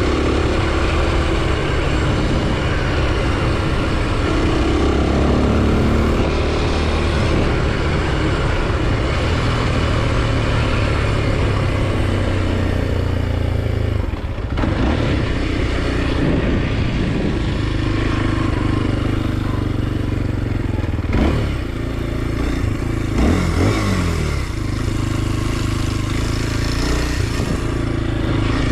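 Kawasaki KLX 230 SM's single-cylinder four-stroke engine running while riding, its revs rising and falling several times, with a cluster of quick revs in the last third.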